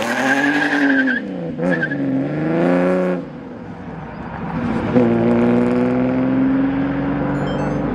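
TVR Tuscan's straight-six engine revving hard as the car pulls away, its pitch climbing and falling back twice in the first three seconds. After a short dip it picks up again about five seconds in, with a long, steady rise in pitch as the car accelerates away.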